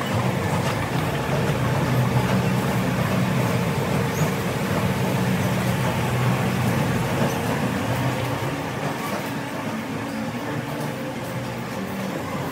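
Escalator running: a steady low mechanical hum under a noisy haze, easing off after about eight seconds.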